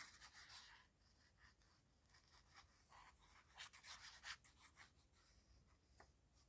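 Faint scratchy rubbing of a liquid glue bottle's applicator tip spread over paper in quick short strokes, busiest about four seconds in, with light rustling of the paper sheet.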